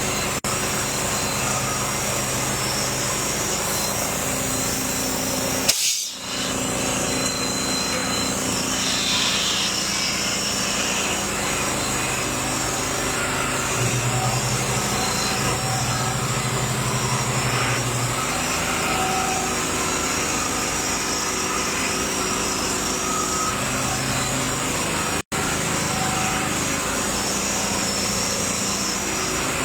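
A small motor running steadily, with a low hum that swells and fades at times.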